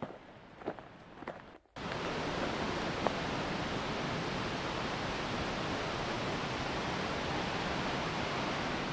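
A few soft footsteps, then, after a sudden cut under two seconds in, a steady, even rush of water.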